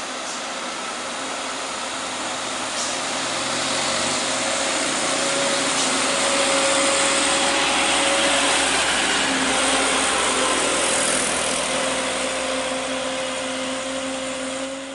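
Light cargo truck passing close and pulling away up the hill, with mixed traffic. Its engine and tyre noise swells to a peak about halfway through, then eases as a steady engine hum holds on.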